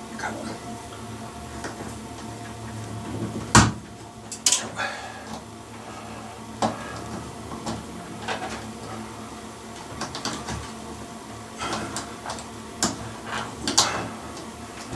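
Scattered clicks and knocks of a screwdriver and fingers working at a plastic LED ceiling light fitting and its screw terminal connector block. The loudest is one sharp knock about three and a half seconds in.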